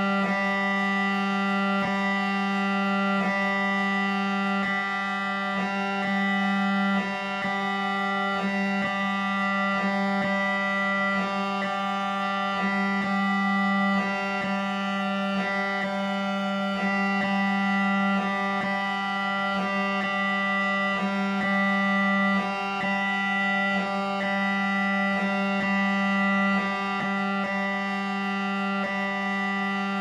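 Electronic drone piece built from layered, unprocessed MRI scanner recordings: a loud held low hum with many steady higher tones stacked above it. Faint clicks pulse through it at a fairly even rate.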